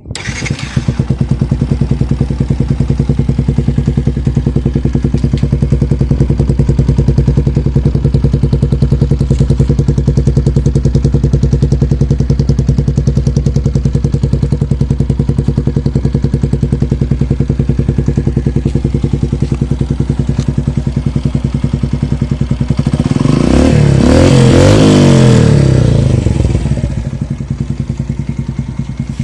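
Yamaha YTX single-cylinder motorcycle engine idling through an Akrapovic muffler with its silencer insert removed, a loud, steady, pulsing exhaust note. About 23 seconds in the throttle is blipped for a few seconds, the note rising and getting louder, then it drops back to idle.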